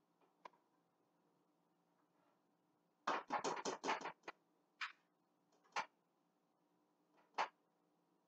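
Kitchen cookware and utensils clattering as they are handled: a quick run of knocks and clinks about three seconds in, then three single knocks a second or so apart.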